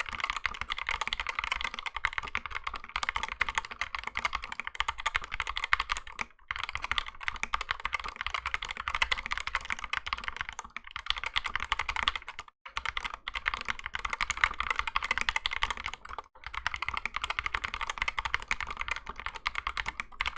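Fast, continuous typing on a 60% mechanical keyboard fitted with optical Gateron switches, the keys clacking in dense runs broken by three short pauses.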